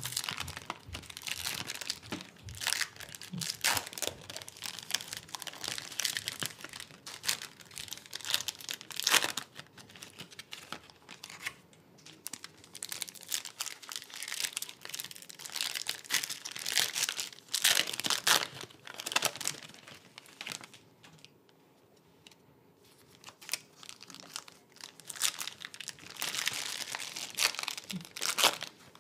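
Foil trading-card pack wrappers being torn open and crinkled by hand, in irregular rustling bursts, with a quieter pause about three quarters of the way through.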